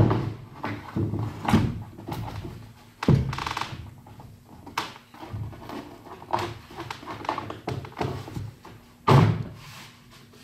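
Wide pine floorboards being lowered and shifted into place on a wooden plank floor: a series of hollow thunks and knocks, the loudest at the start, about three seconds in and about nine seconds in, with smaller taps and scrapes between.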